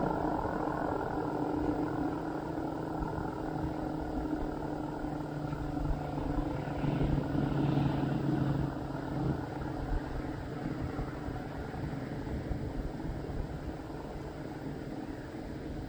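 ACA Penetrator-50 tornado siren, driven by a 50 hp three-phase motor through an 8/12-port chopper, sounding its alert signal. It gives low steady tones over a dense chopping rumble, and slowly gets quieter.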